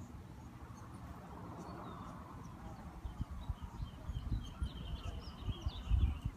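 Small birds chirping in the distance, with a short high trill in the second half. Under them a low, uneven rumble that grows louder near the end.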